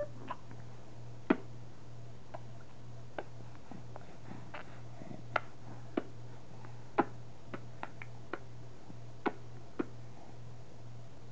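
A baby smacking his lips: about a dozen short, sharp clicks at irregular intervals, the loudest about a second in.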